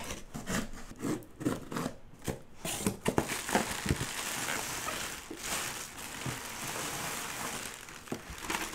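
Cardboard shipping box being cut open and its flaps pulled back, with scattered scrapes and knocks. From about three seconds in, steady crinkling of plastic air-cushion packing being pulled out of the box.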